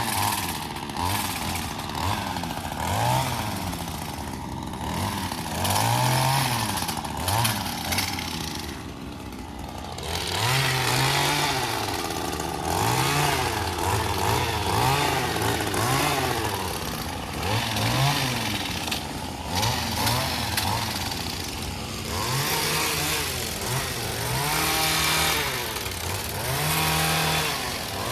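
Two-stroke chainsaw revving up and falling back over and over while cutting limbs during tree trimming, with brief lulls between cuts.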